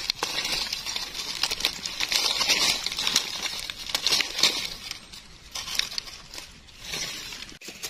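Dry leaf litter crackling and rustling in irregular crunches and clicks, busier at first and quieter after about five seconds.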